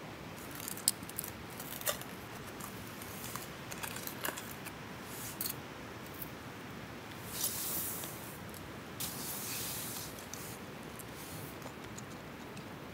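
Close-up handling sounds of small gear: a few sharp clicks and light clinks in the first half, then two longer rustles about halfway through.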